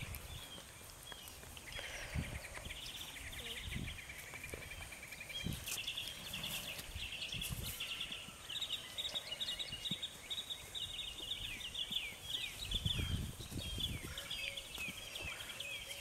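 Songbirds chirping and trilling in rapid runs of short notes, getting busier from about two seconds in, with a few scattered low thumps.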